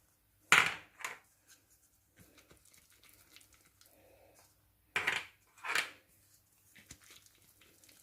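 Puto molds being greased with melted butter: two quick pairs of short scraping, rustling strokes, about half a second in and again about five seconds in, with faint handling noise between.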